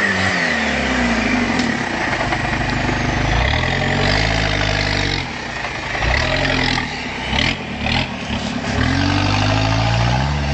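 Toyota 4x4's engine revving up and falling back repeatedly while driving off-road, the pitch rising and dropping several times. A few sharp cracks about seven and a half seconds in.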